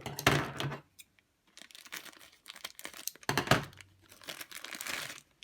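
Crinkling and tearing of a small plastic toy wrapper being pulled open by hand, in several irregular rustles, the loudest about three and a half seconds in.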